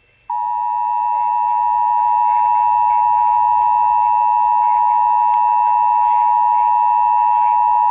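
Emergency Alert System attention signal from a weather radio: one loud, steady alarm tone near 1 kHz that starts a fraction of a second in and holds without a break. It follows the alert's data header and announces a Child Abduction Emergency (Amber Alert).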